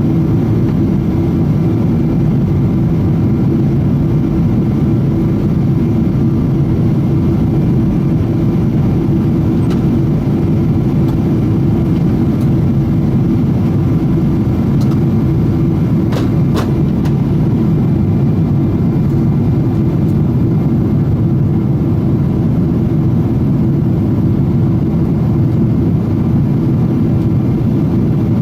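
Boeing 777-200 cabin noise in flight: a steady, deep rush of engine and airflow noise with a constant hum, and a couple of faint clicks about halfway through.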